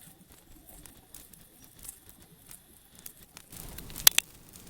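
Rubbish bonfire crackling faintly, with two sharp pops about four seconds in.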